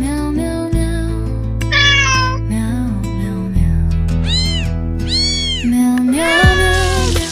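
A cat meowing four times over background music, the first meow wavering and the later three short and arching up then down in pitch.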